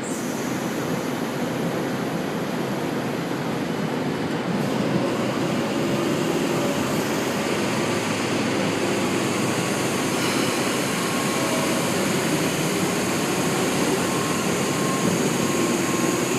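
Sydney Trains K-set double-deck electric train at the platform, giving a steady mechanical running hum with faint whining tones.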